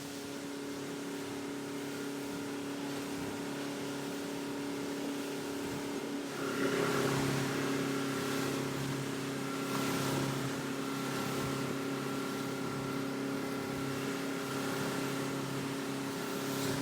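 Boat motor running steadily with an even hum, opening up about six and a half seconds in and holding at the higher speed.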